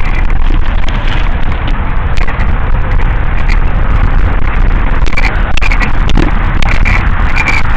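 Mountain bike riding over a dirt track: loud, steady wind buffeting on the microphone over the rumble of knobbly tyres on dirt, with frequent short rattles and knocks as the bike goes over bumps.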